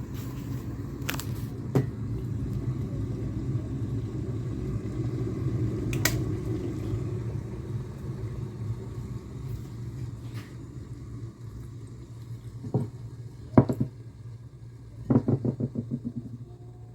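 Small electric tea kettle rumbling as its water heats toward the boil; the rumble eases off after about eight seconds. Several sharp clicks and knocks are heard, the loudest about two-thirds of the way in, followed by a quick run of taps near the end.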